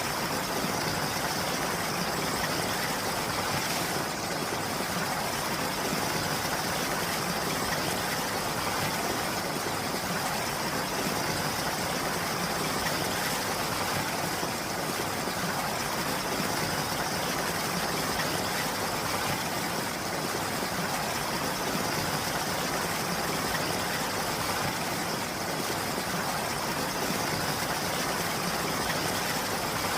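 Steady rain falling: a continuous, even hiss with no breaks or single drops standing out.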